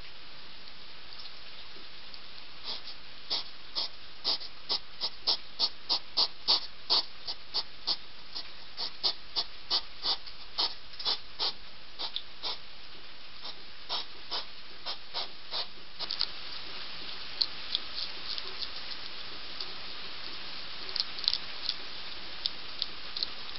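A European hedgehog crunching dry food pellets, a run of sharp crunches about two or three a second, over a steady hiss of heavy rain. About two-thirds of the way through, the crunches thin out and the rain hiss grows brighter.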